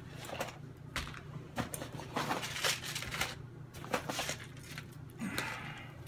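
Rustling and clattering as fishing tackle is pulled out of a backpack's top compartment: packs of soft plastic baits and small plastic tackle boxes handled and set down one after another, in a string of short irregular knocks and crinkles.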